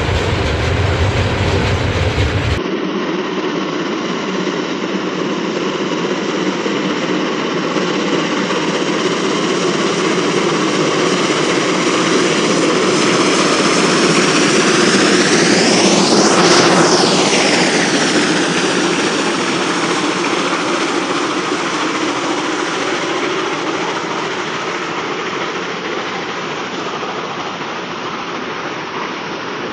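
Loud, steady rushing noise of something large passing. It changes abruptly a couple of seconds in, then swells to a peak about sixteen seconds in with a sweeping, phasing sound and slowly fades away.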